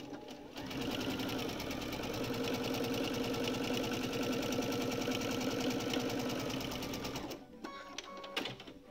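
Electric sewing machine stitching a seam through cotton quilt fabric at a steady, fast speed, starting about half a second in and stopping after about seven seconds.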